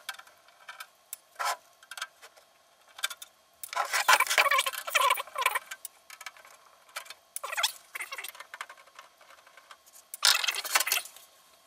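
Screws being undone with a screwdriver from the metal case of a Tascam DA-30 mkII DAT deck to take off its top cover: small metallic clicks and rattles, with three louder bursts of rattling and scraping, about four, seven and ten seconds in.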